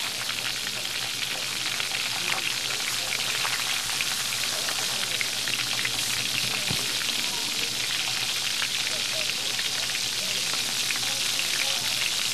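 Burger patties frying on a flat-top griddle: a steady sizzling hiss with fine crackling pops.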